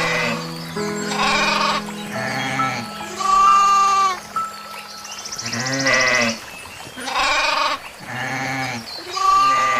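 A farm animal bleating again and again, short wavering calls about a second apart with a longer one about three seconds in, over soft background music with long held notes.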